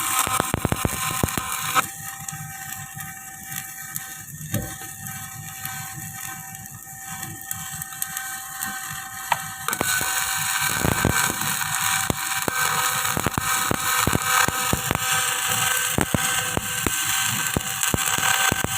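Electric arc welding on the steel splice joint of a concrete pile: a crackling, sizzling arc that drops away about two seconds in and returns at full strength near the halfway point.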